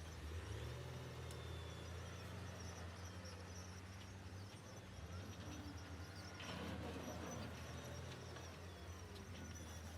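Heavy earthmoving machinery engine running steadily at a low, even pitch, with a brief rushing noise about six and a half seconds in.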